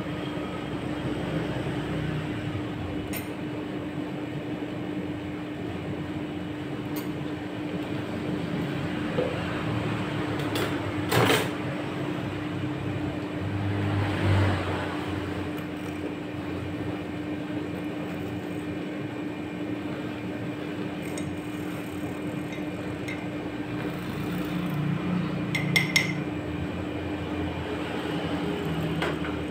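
Steady mechanical hum from the ice cream roll machine, with a few glass clinks and a handheld mixer whisking ice cream mix in a glass mug.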